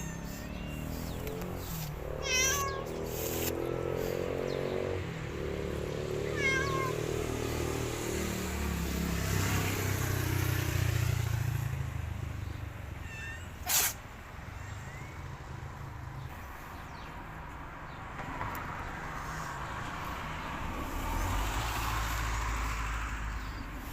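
Several cats meowing now and then, over a low steady rumble, with one sharp click about fourteen seconds in.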